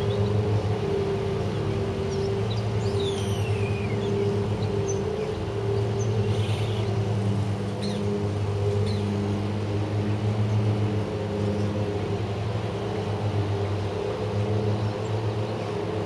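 A steady low mechanical hum that swells and fades, with wind noise on the microphones. About three seconds in comes a falling whistled bird call, and a few short high chirps follow.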